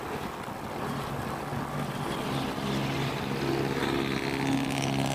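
Motorcycle engine running steadily at cruising speed under a rush of wind and road noise, its note climbing slightly in the second half.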